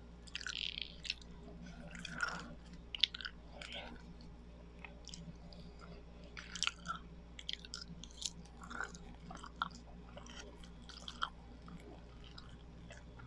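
Close-miked chewing of biko, the sticky Filipino sweet rice cake: irregular wet, sticky mouth clicks and smacks as the glutinous rice is chewed.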